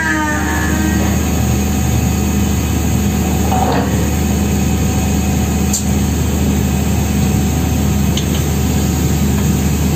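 Drilling rig machinery running with a steady, loud engine drone. A brief falling tone sounds right at the start, and a sharp click comes about halfway through.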